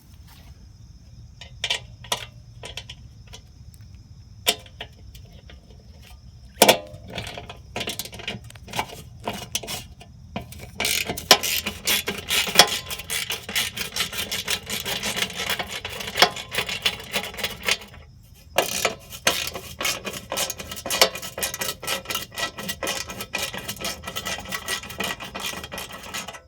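Hand ratchet wrench clicking rapidly as bolts are backed out of a mini bike's rear fender, in two long runs with a short break between. Before them come a few scattered metallic knocks and clicks of tools and parts being handled.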